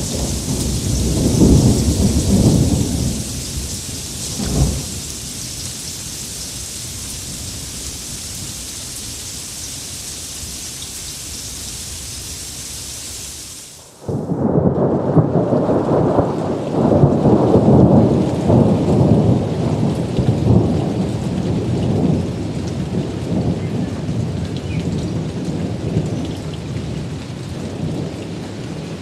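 Thunderstorm: steady heavy rain hiss with rolling thunder in the first few seconds and a short sharp thunderclap about four and a half seconds in. About halfway through the sound cuts off abruptly to a different, duller and deeper rain recording with rumbling that swells and eases.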